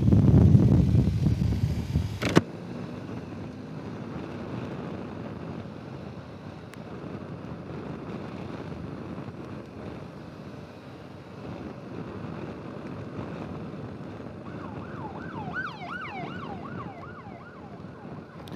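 Wind buffeting on a helmet microphone, which stops with a sharp click about two seconds in, leaving a steady low background of traffic noise. Near the end an emergency-vehicle siren warbles up and down about three times a second for around three seconds.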